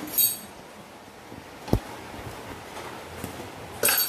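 A single sharp knock a little under two seconds in, with short clinking rattles at the start and again near the end, over quiet room tone.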